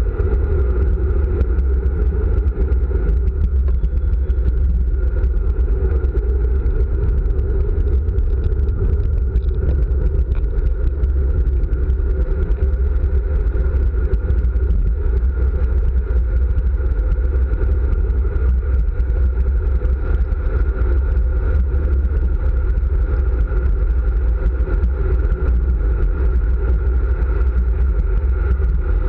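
Steady wind rush over the microphone of a handlebar-mounted camera on a road bike descending at speed: a loud, low, even noise with no letup.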